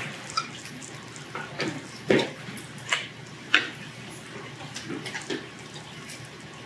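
A man eating a mouthful of food noisily: wet chewing and smacking, with about half a dozen short, sharp smacks or slurps over the first five seconds.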